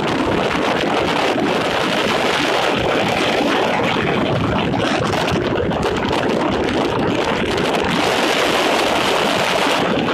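Steady wind and road noise from a car travelling at highway speed, with wind buffeting the microphone.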